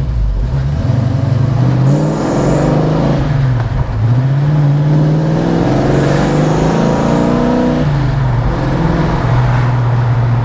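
Pontiac V8 muscle car heard from inside the cabin, accelerating through the gears: the revs climb, drop back about two and four seconds in, climb again, then fall near the end and settle to a steady cruise.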